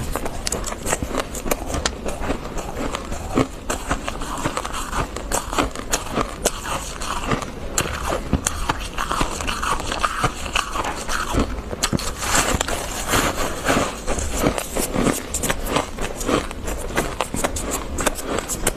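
Close-up crunching of fluffy freezer frost being bitten and chewed, a dense run of irregular crackles and crunches.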